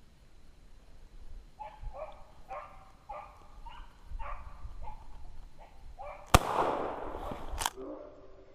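Beagles baying on a rabbit's track, short bawls about twice a second, then two gunshots about a second and a half apart, with more baying after.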